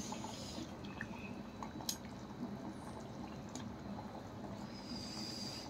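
Thick fish curry simmering and bubbling in a pan as a wooden spatula stirs through it, with a few small sharp clicks.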